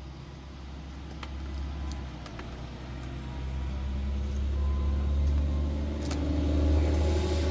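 Low vehicle engine rumble that grows louder partway through, with scattered light clicks and taps of tools being packed away.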